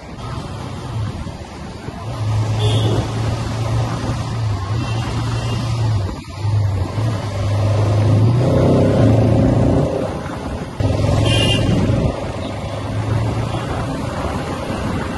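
Bajaj Pulsar RS200 motorcycle ridden at road speed: a steady engine drone under heavy wind and road noise. The drone dips briefly about six seconds in, and two short higher-pitched sounds stand out, one early and one about eleven seconds in.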